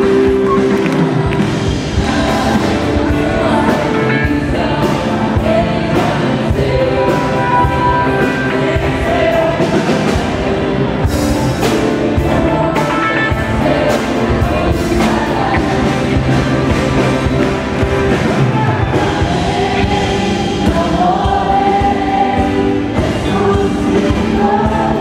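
Christian worship music with many voices singing together over a full band.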